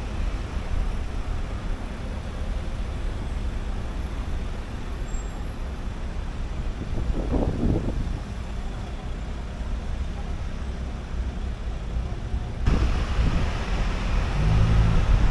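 Car on the move through town streets: a steady low rumble of engine and tyres on the road. A short higher-pitched sound comes about halfway through, and near the end the noise turns louder and more rushing.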